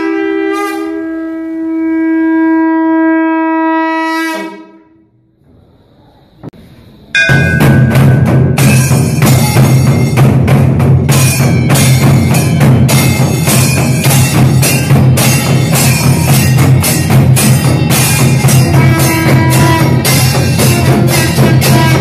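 A horn-like wind instrument holds one long note for about four seconds. After a short quiet gap, loud background music with a dense drum beat and heavy bass starts abruptly about seven seconds in.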